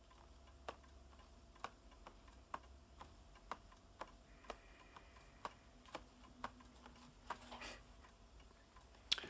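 A clock ticking steadily, a sharp tick about once a second with softer ticks in between.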